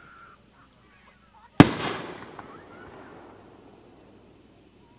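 A consumer fireworks cake shot breaking in the air: one sharp bang about a second and a half in, with a rolling echo that fades away over about two seconds.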